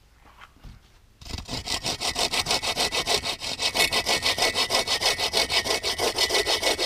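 Bow saw cutting through a dry poplar log. After about a second of quiet, fast, even push-pull strokes start and keep going.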